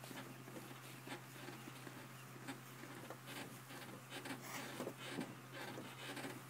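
Cattle walking across wet pasture: an irregular scatter of soft hoof steps and grass rustles, over a steady low hum.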